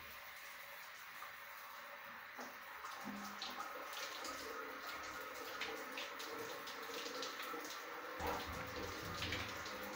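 Water running from an electric instant shower head and falling on the bathroom floor: a steady rush of water with scattered splashes.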